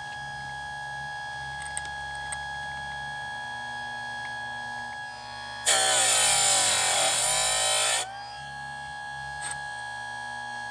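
Electric chainsaw sharpener's motor running with a steady hum. About halfway through, the grinding wheel is lowered onto a chain tooth and grinds loudly for about two seconds, the motor's pitch dipping under the load, then it returns to running free.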